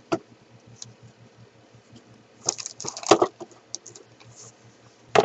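Handling of a jigsaw puzzle box and its packaging: a sharp click at the start, then a cluster of crackling rustles and taps about two and a half seconds in, and another sharp click near the end.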